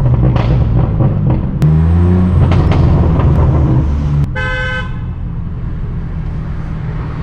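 Straight-piped BMW M4 F82's twin-turbo inline-six running under throttle, pulling harder about one and a half seconds in with a few sharp cracks. A car horn honks once for about half a second near the middle, as the engine drops back to a quieter cruise.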